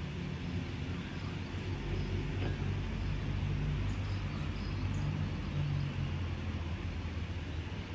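A steady low mechanical rumble, like a motor or engine running.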